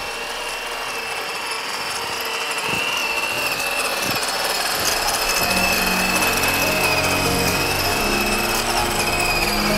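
MN86KS 1/12-scale RC crawler's small electric motor and gear train whining steadily as it drives, the pitch wavering slightly with speed, over a gritty mechanical rattle.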